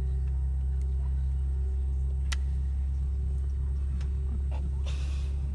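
Steady low drone inside the cabin of a Boeing 717-200 jet airliner on the ground, with a single sharp click a little over two seconds in.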